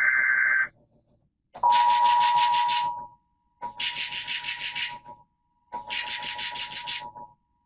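Emergency Alert System coded data bursts between two alerts: a short burst that ends just under a second in, then a run of buzzy electronic bursts about a second and a half long, each with a steady beep-like tone under it and short silences between them. These are the digital header tones that open an alert broadcast.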